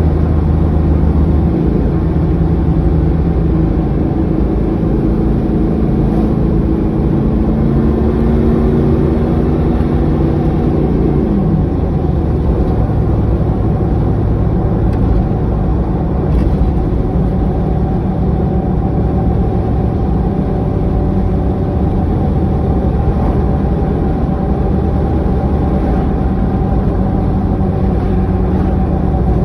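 Engine running steadily throughout. A higher tone slides down in pitch and fades about eleven seconds in.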